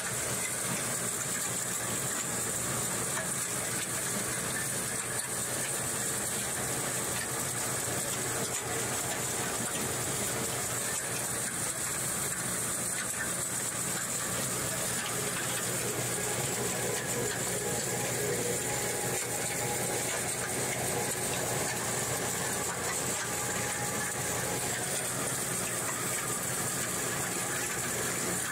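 Ore milling plant machinery running steadily: motors and a vibrating shaker table hum, over the hiss of water jetting from the spray bar across the table deck.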